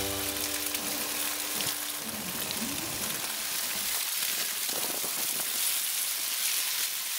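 Steady hiss of car tyres rolling over a slushy, snow-covered road, with faint tones fading out over the first few seconds.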